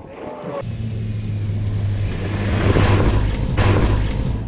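2022 Ford Bronco driving past at close range on a sandy dirt track: a steady engine hum with tyre and road noise on the sand. It grows louder as the truck approaches, peaks about three to four seconds in as it passes, then starts to fade.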